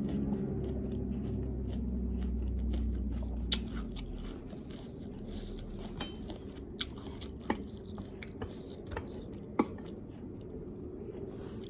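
Close-up eating sounds: a low rush of breath blown out through pursed lips for the first few seconds, then chewing with scattered sharp wet mouth clicks and smacks, the loudest a little over nine seconds in.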